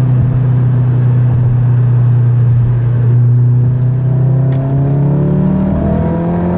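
APR Stage 2 tuned Volkswagen's turbocharged engine heard from inside the cabin, droning steadily at cruise. About four seconds in, the revs start to climb steadily as the car accelerates.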